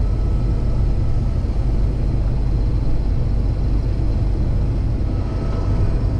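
Case IH 2388 combine running steadily while harvesting corn, a constant low machinery drone with a few steady hum tones.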